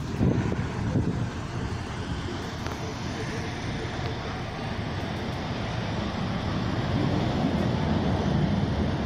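Outdoor traffic noise: a steady, rumbling wash of passing road traffic that grows slightly louder over the last few seconds.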